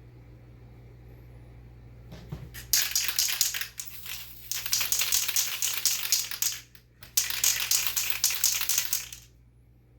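Mr. Super Clear semi-gloss aerosol spray can hissing in two long sprays, the first about four seconds and the second about two, applying a clear top coat.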